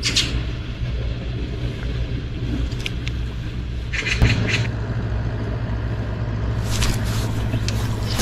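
Steady low wind rumble on the microphone, with several short swishing hisses from a spinning rod being cast and the line running off the reel; the longest comes about four seconds in.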